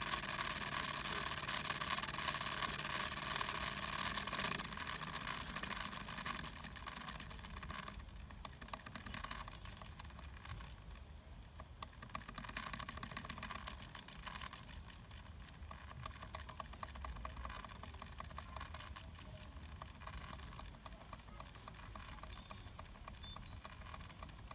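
Wilesco model steam traction engine running under steam: a loud steam hiss for the first four or five seconds, then a fast, even ticking from its cylinder and motion.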